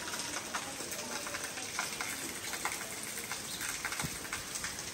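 Steady rain falling into standing water and onto trees: a continuous even hiss made of many fine drop taps.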